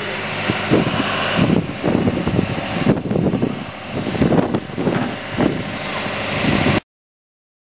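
Wind buffeting the microphone in gusts over a steady outdoor rumble, cutting off abruptly into silence near the end.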